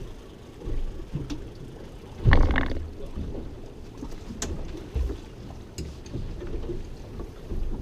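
Wind rumbling on the microphone and water moving around a small open boat at sea. About two seconds in there is a louder rushing burst, and a few sharp clicks follow later.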